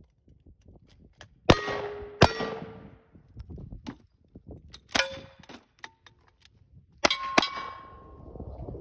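Gunshots at steel targets, each sharp report followed by the ringing clang of hit steel. There are two shots under a second apart, a single one midway, and two quick ones near the end.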